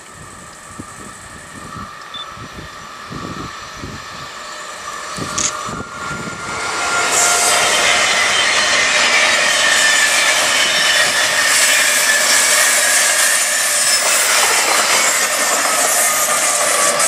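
DB Intercity passenger train, control car leading, approaching and then rolling past close by. Its rolling noise grows for about seven seconds, then turns into a steady, loud rush of wheels on rails as the coaches go by.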